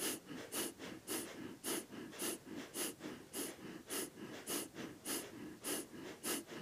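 Breath of fire: fast, rhythmic, forceful breathing through the nose, driven by the belly, with short sharp breath hisses at a steady pace of about two a second.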